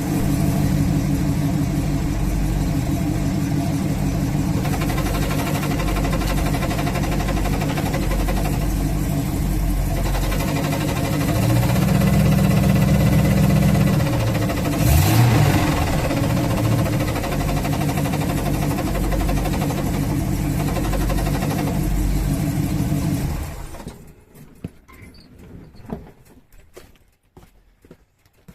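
Dodge Challenger's 383 V8 idling steadily while the clutch pedal of its A833 four-speed is pressed, bringing out a clutch noise. There is a brief rev about halfway through, and the engine shuts off a few seconds before the end, leaving only faint clicks.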